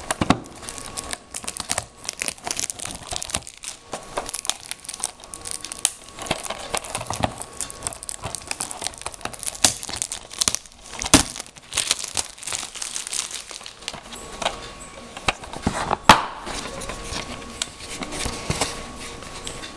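Crinkling plastic packaging and scattered clicks as a DVD case is handled and opened, with one sharp click about 16 seconds in.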